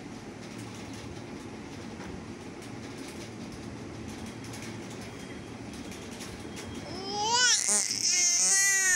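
Seven-month-old baby babbling in a high, wavering voice for about two seconds near the end, happy sounds rather than crying. Before that there is only a steady background noise.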